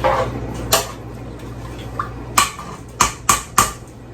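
Cookware and utensils clinking in a kitchen: about five sharp knocks, four of them close together in the second half, over a steady low hum.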